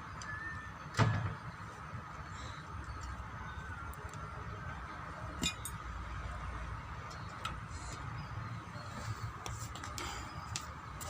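Metal tools and engine parts clinking and knocking as a brush cutter is taken apart, with one louder knock about a second in and a run of small clicks near the end, over a steady workshop hum.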